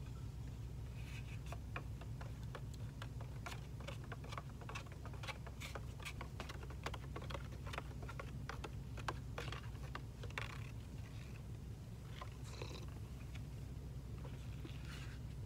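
A steady, fluttering low hum, with a run of light clicks and taps through the middle.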